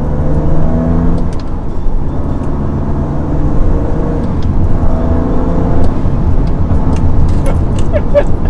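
BMW M2 Competition's 3.0-litre twin-turbo straight-six (S55) pulling, heard from inside the cabin over a steady rumble of tyres and road, its note rising for about a second shortly after the start and again around the middle.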